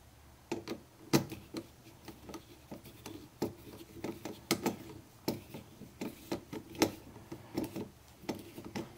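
Phillips screwdriver tightening the screws of a metal cable clamp on a dishwasher's junction box: irregular metal clicks and ticks, a few each second.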